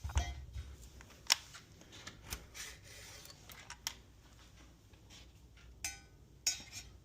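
Steel parts of a WBP 5.56 AK 100-series rifle clicking and clacking as it is handled and taken apart. Single sharp knocks come a second or so apart, the loudest near the start and about a second in.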